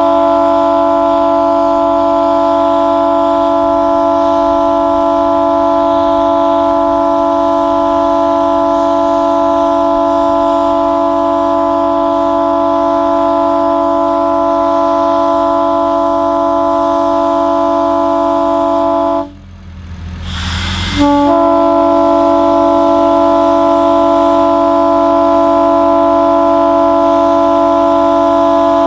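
Nathan P3 three-chime locomotive air horn blowing a long steady chord. It cuts off about 19 seconds in, a brief rushing sound follows, and the chord sounds again about two seconds later.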